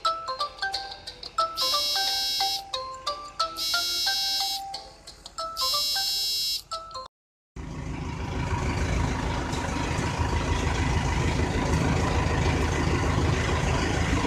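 An electronic melody of single stepped notes, with a bright chime repeating about every two seconds, cuts off about seven seconds in. After a brief silence, a tractor engine is heard running steadily.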